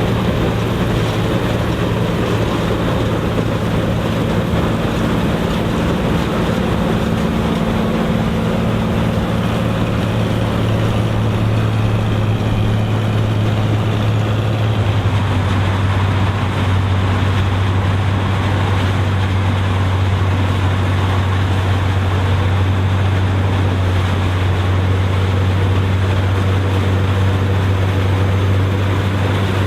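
Vintage combine running steadily while harvesting corn: a continuous low engine drone with machinery noise, the engine note shifting slightly about halfway through.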